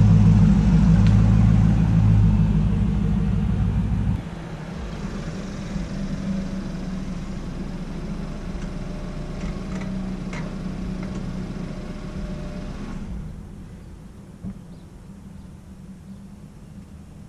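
Dodge Challenger V8 rumbling at close range, cutting off sharply about four seconds in. A quieter car engine then runs steadily until it stops near the end.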